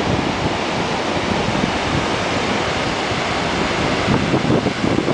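Steady rush of wind at the open door of a moving passenger train, buffeting the microphone, with the train's running noise underneath.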